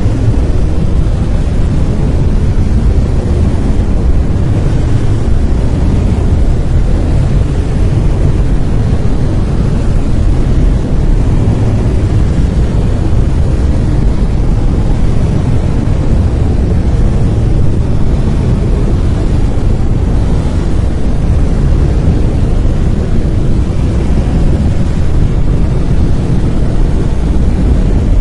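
Brown noise: a steady, loud, deep hiss-like rumble, strongest in the low end and thinning toward the highs, without change.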